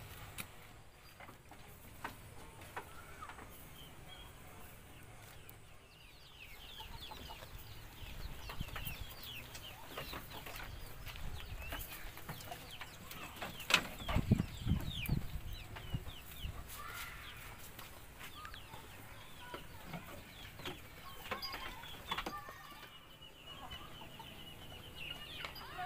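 Chickens clucking in a bamboo pen, with many short, high falling chirps. A thump and scuffle come about halfway through.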